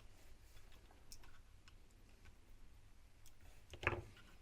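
Faint small clicks and taps as the opened plastic head-torch battery pack is handled, with one louder handling noise about four seconds in.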